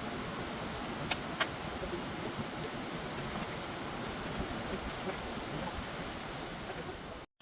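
Steady shop background noise, an even hiss with no rhythm, broken by two short light clicks about a second in; it cuts off suddenly near the end.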